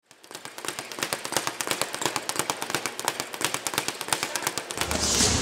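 A rapid, even run of sharp taps, about eight a second, fading in and growing louder; near the end a fuller music track with a steady low bass comes in over it.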